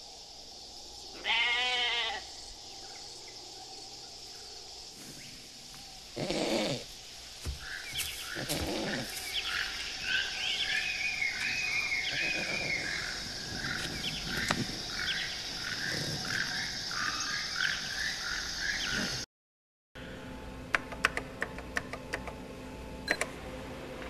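Jungle ambience sound effect: a steady high insect buzz under animal calls, one about a second in and more around six to nine seconds in, then a long run of chirping calls. Near the end it cuts out abruptly and gives way to a different track of scattered sharp clicks over a low steady hum.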